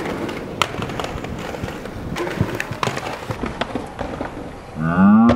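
Inline skate wheels rolling over stone paving, with scattered sharp clicks and knocks from the skates on the tiles and ledge. Near the end, a loud short shout.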